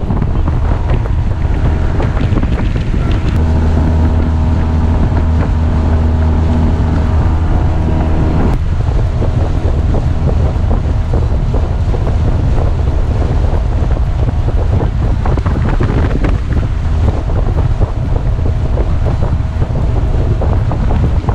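Honda 8 hp twin-cylinder four-stroke outboard running at speed, driving an aluminum jon boat across open water. Its steady drone is partly covered by wind buffeting the microphone and water rushing along the hull.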